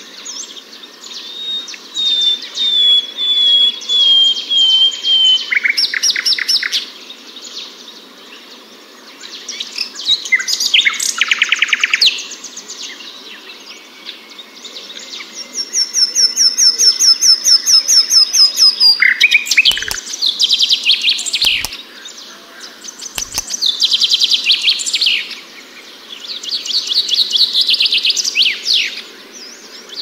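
Common nightingale singing: varied phrases of fast trills, whistled notes and rapid runs of repeated notes, each lasting one to a few seconds, with short pauses between them.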